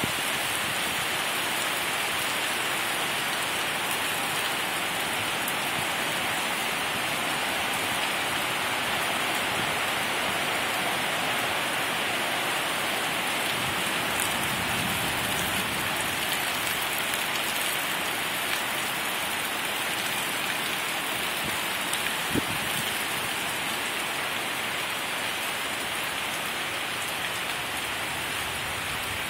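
Heavy rain pouring down steadily in a storm, a dense, even hiss. There is one short knock about three quarters of the way through.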